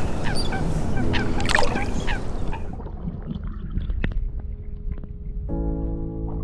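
Geese honking in short calls over a steady outdoor hiss; the hiss cuts off suddenly after about two and a half seconds, leaving a few faint clicks, and music with held chords comes in about five and a half seconds in.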